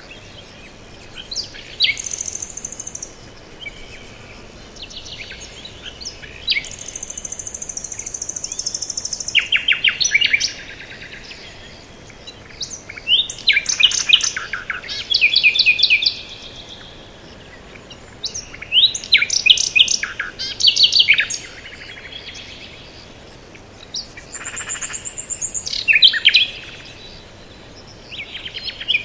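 Songbirds singing: bursts of quick chirps and trills every few seconds, with longer high, buzzy trills about two and seven seconds in, over a faint steady background.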